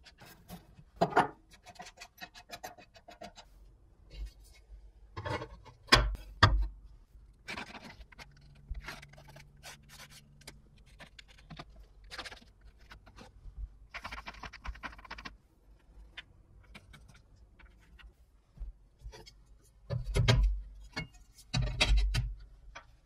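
Steel plates of a homemade welding magnet handled on a wooden board: knocks and clatter as the plates are set down and later lifted off, loudest about six seconds in and again near the end. Between them come quieter stretches of scratching as a pencil traces around the plates' edges.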